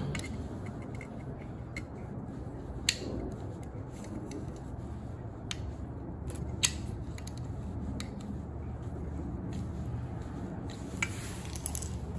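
Scattered sharp metallic clicks of a pick prying at the retaining clip on the furnace inducer motor's shaft to free the fan wheel, the loudest about three seconds in and near the middle. A steady low rumble runs underneath.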